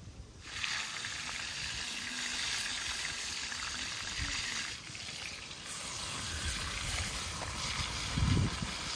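Flour-dusted whole fish frying in hot oil in a wide metal pan over a wood fire: a steady sizzle with bubbling oil. A low rumble comes in near the end.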